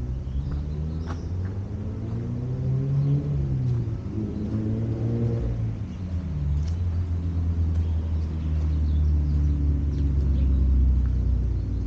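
Motor vehicle engine going by, its pitch rising and falling, over a low rumble that grows louder in the second half.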